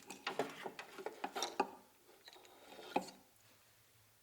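A quick run of sharp clicks and light knocks from hard objects being handled, then one more sharp click about three seconds in.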